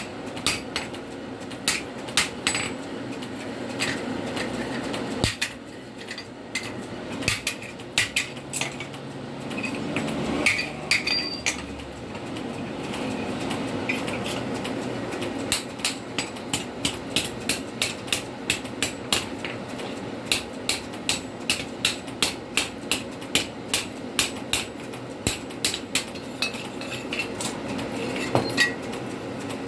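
Hand hammer striking steel on an anvil in blacksmith forging: sharp metallic blows, irregular at first, then a steady run of about two strikes a second through the second half.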